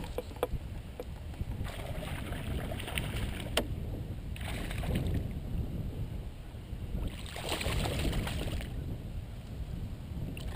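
Kayak paddle strokes swishing through the water every couple of seconds, with a few light knocks, over a steady low wind rumble on the microphone.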